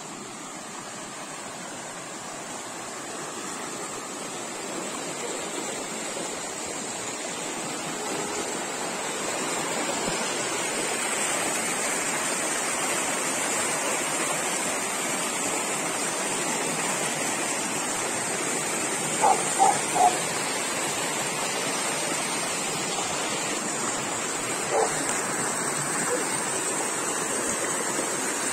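River water rushing over rocks in shallow rapids, a steady noise that grows louder over the first ten seconds and then holds. A dog barks three times in quick succession a little past two-thirds of the way in, and once or twice more near the end.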